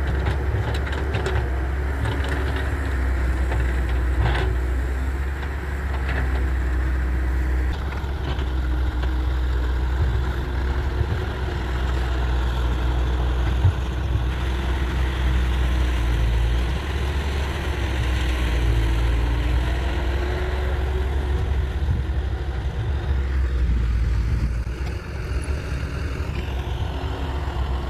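Diesel engines running steadily: a Hyundai Robex 1300W wheeled excavator and a farm tractor, whose engine pitch rises and falls as it pulls a loaded earth trolley away. There is one short knock about halfway through.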